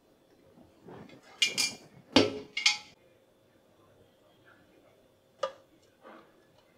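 Ceramic serving dish being handled: a cluster of sharp clinks and knocks about one to three seconds in, the loudest near two seconds, then a single click about five and a half seconds in.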